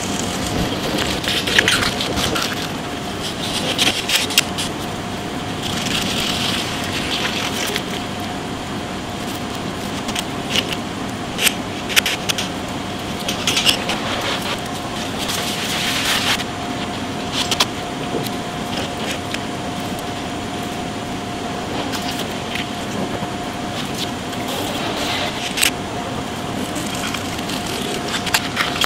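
Knife cutting and scraping along eels on a wooden cutting board during filleting: short scraping strokes and scattered sharp taps of the blade on the wood, over a steady hum.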